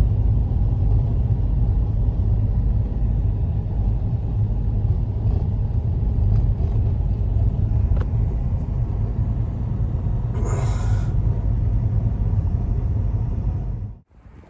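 Strong storm wind buffeting the microphone, a loud steady low rumble, with a brief hissing gust about ten and a half seconds in.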